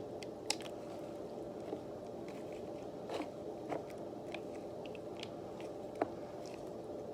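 Slime being stirred and squished, giving scattered small clicks and crackles, the sharpest about half a second in and near six seconds. A steady low hum runs underneath.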